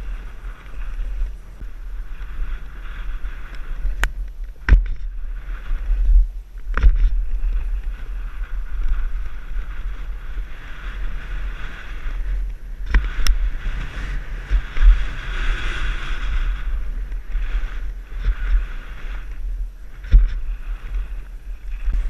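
Wind buffeting a helmet-mounted camera's microphone while riding a dirt trail: a steady low rumble with a hiss of rushing air and tyre noise, broken by several sharp knocks.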